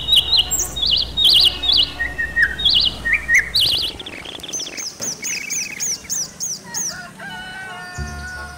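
Birds chirping and singing: quick repeated trilled phrases, then a run of short downward-slurred whistles at about two a second from about halfway. A few held tones come in near the end.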